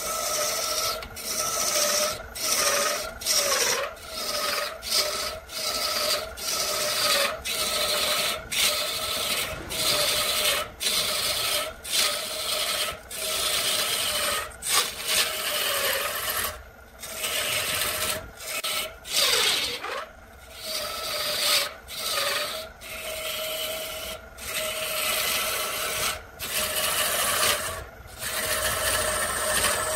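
Lathe tool cutting into a spinning wooden blank on a wood lathe: a continuous rasping, scraping cut with a steady tone running under it. The cut breaks off briefly many times, roughly once a second.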